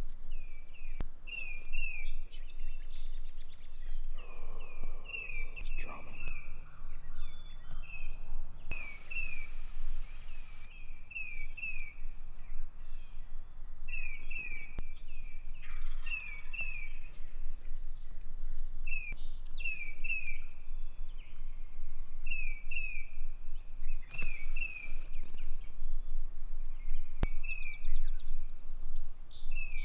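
Small birds chirping: short high chirps, often in pairs, repeating every second or so throughout.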